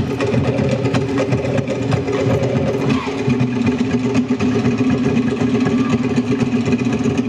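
Tahitian percussion ensemble of to'ere slit drums and pahu drums playing a fast, dense, unbroken rhythm for the dance.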